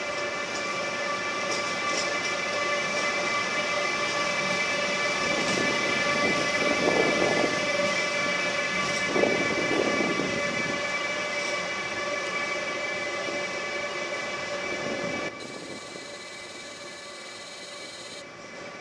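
CP class 5600 (Siemens Eurosprinter) electric locomotive moving slowly, its traction equipment giving a steady whine of several pitches over the noise of the wheels. Twice near the middle the noise swells louder, and about three-quarters through the sound drops suddenly quieter.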